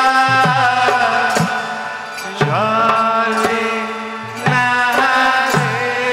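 Live Bengali folk music: a held melody line with long sustained notes over hand-drum strokes whose low tones bend downward in pitch. New phrases come in about two and a half seconds in and again near four and a half seconds.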